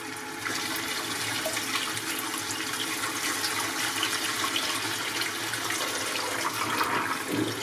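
Kitchen tap running into a pot of boiled octopus while the cooking water pours over its rim into a stainless steel sink: a steady rush and splash of water that gets louder about half a second in.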